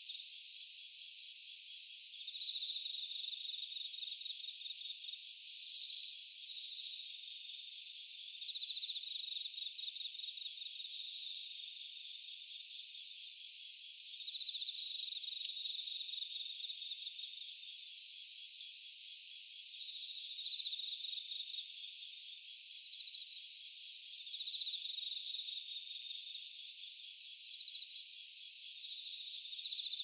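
Chorus of night-singing insects such as crickets: one high, steady continuous trill with pulsed trilling chirps in repeated bouts of a second or two beneath it.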